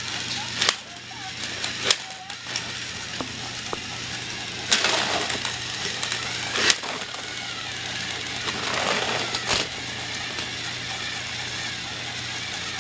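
Small battery-powered toy train motor whirring steadily as the engine runs along plastic track, with a few sharp clicks from the wheels and track.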